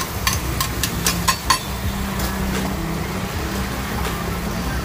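Rapid sharp taps of a metal cooking utensil at a street-food stall, about four a second, stopping about a second and a half in, over the steady low hum of a running vehicle engine.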